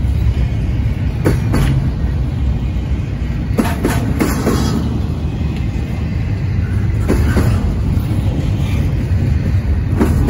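Double-stack intermodal container well cars rolling past on steel rails, a steady heavy low rumble. Clusters of sharp clacks come every few seconds as the wheelsets cross rail joints.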